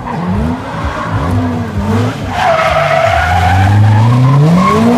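Chevrolet Corvette C6's V8 drifting, its revs rising and falling again and again. Tyre squeal comes in about halfway. Near the end the engine revs climb steadily.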